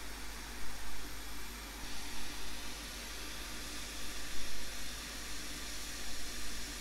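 Quick 861DW hot air rework station blowing with a steady hiss, which grows brighter about two seconds in, while it heats a surface-mount electrolytic capacitor to desolder it from the circuit board.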